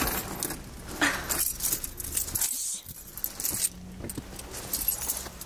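Keys jangling amid clicks and rustling of handling inside a car.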